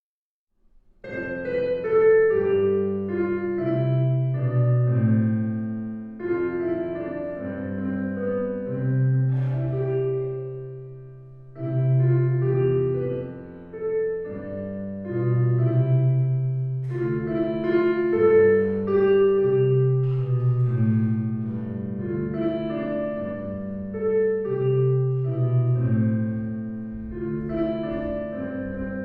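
Instrumental piano music, a melody over a bass line in phrases with short breaks, starting about a second in.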